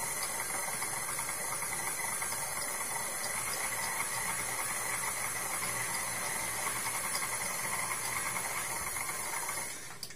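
KitchenAid Classic tilt-head stand mixer running steadily as it kneads bread dough in its steel bowl, a constant motor whine with the dough working against the bowl. It stops suddenly near the end.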